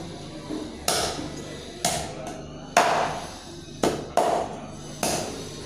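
Knife chopping through meat and bone: six sharp blows about a second apart, two in quick succession about four seconds in.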